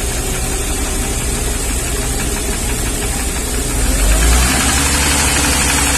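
1994 Mercedes-Benz G320's straight-six engine running cold with a rapid tapping knock; about four seconds in, the throttle is opened and the engine speeds up and gets louder. The knock sounds deeper than the valve train, and the mechanic suspects a piston knock, a wrist pin or something like that.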